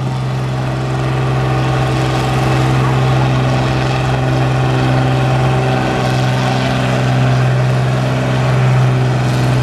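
John Deere farm tractor's engine running hard at a steady pitch while pulling a weight transfer sled, growing slightly louder as the pull goes on.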